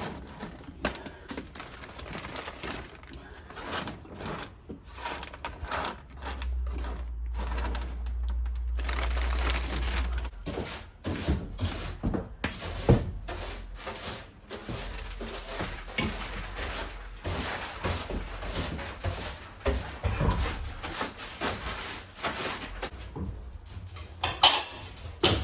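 Irregular knocks, clicks and rustling of work noise, with a low rumble for a few seconds near the middle.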